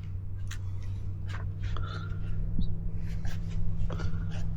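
Light scratching and rustling handling sounds, a scatter of short scrapes and clicks, over a steady low hum.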